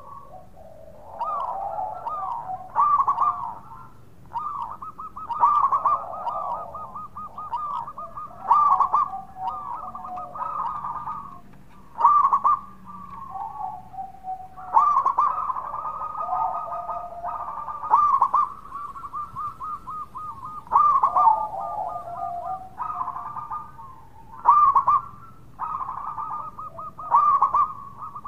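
Zebra dove (perkutut) cooing without a break: phrases of rapid, rippling coo notes, with a loud sharp note standing out about every three seconds.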